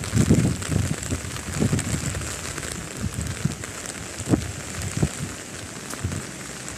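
Steady hiss of rain falling, with low thumps on the phone's microphone: a cluster of them in the first two seconds and two sharper ones about four and five seconds in.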